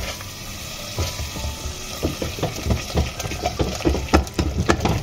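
A spatula stirs and scrapes a thick onion-tomato-yogurt masala in a stainless steel pot over a steady sizzle of frying oil. The masala is being fried down until the oil separates. The scraping strokes come quicker from about two seconds in.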